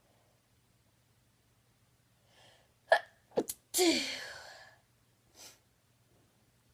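A woman's induced sneezes: a quick breath in, then three sneezes in fast succession. The first two are short and sharp, about half a second apart, and the third is long and voiced, falling in pitch as it trails off, followed by a breath.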